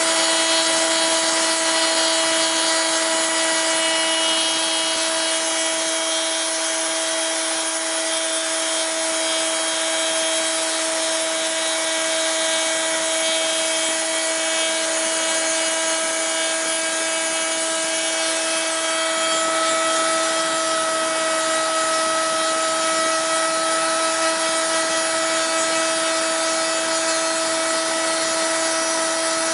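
Router motor on a home-built CNC machine running steadily, its small straight bit cutting a slot through thin plywood: a constant high whine over the hiss of the cut.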